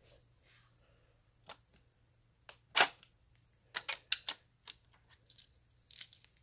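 Scattered clicks and taps of small diecast cars being handled and set into a toy race track's starting gate, with one louder knock about halfway through and a quick cluster of clicks after it.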